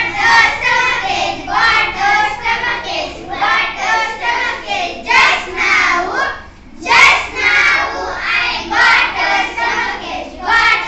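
A group of children singing an action song together in unison, in short phrases, with a brief pause about two-thirds of the way through.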